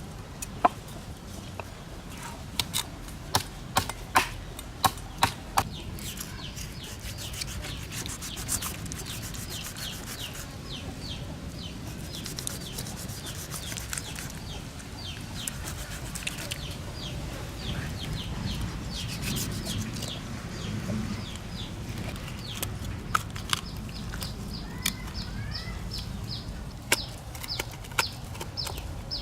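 Steady scraping and rubbing, with several sharp knocks in the first few seconds and a few more later, while birds chirp repeatedly in short high notes through the second half.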